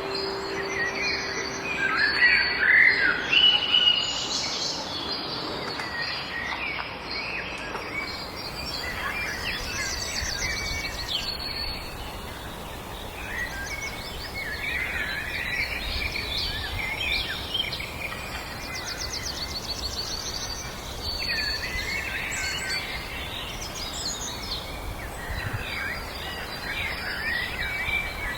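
Several wild birds singing and calling over each other: quick chirps, whistled glides and a fast trill, over a steady background hiss of outdoor ambience. A held musical chord fades out in the first few seconds.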